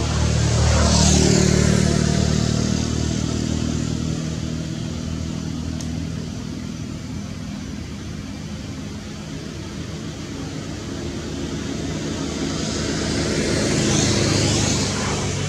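Road traffic: a motor vehicle passes, loudest about a second in, and another passes near the end, with an engine hum in between.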